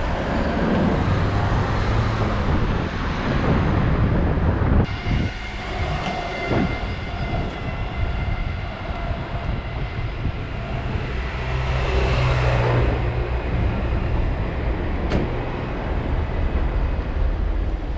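Wind rushing over a bike-mounted camera's microphone, mixed with tyre and city traffic noise as a bicycle rides along the street. The sound changes abruptly about five seconds in, and a louder swell of noise comes about twelve seconds in.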